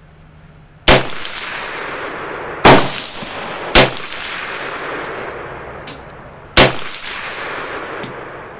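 M1 Carbine firing four semi-automatic shots of .30 Carbine at uneven intervals: the first about a second in, two more close together around three to four seconds, and a last one near seven seconds. Each shot is followed by a long echo that dies away over a second or two.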